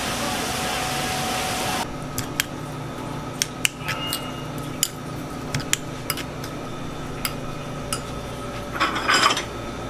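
A steady hiss of kitchen background noise cuts off about two seconds in. Then a metal utensil clinks and scrapes against a small ceramic bowl while diced salmon is tossed with sesame seeds, in scattered sharp taps with a louder scrape near the end.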